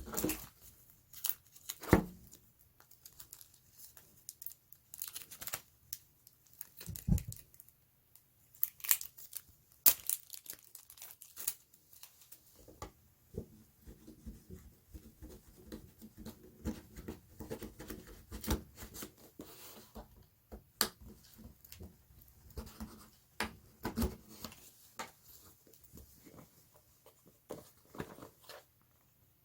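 Phone packaging being torn open and crinkled by hand, with irregular sharp clicks and knocks of handling.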